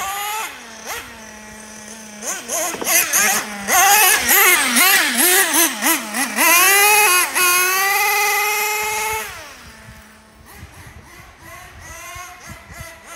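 Team Associated MGT 4.6 radio-controlled monster truck's engine, idling and then revving up and down again and again as it is driven. It holds high revs for about two seconds, then drops back to idle about nine seconds in and runs fainter after that.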